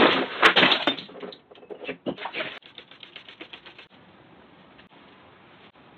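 Small objects such as bottles and cups knocking and clattering on a desk as they are gathered up by hand, loudest in the first couple of seconds, thinning to a few light ticks and then a faint hiss.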